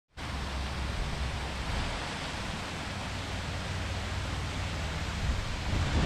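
Steady rushing of a small rock waterfall pouring into a pond, with a low, uneven rumble underneath.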